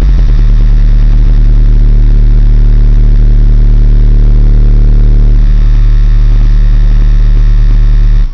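A single 18-inch Ascendant Audio subwoofer in a car playing a steady, very deep bass tone at full power for a dB drag 'burp', loud enough to overload the recording. It cuts off abruptly near the end.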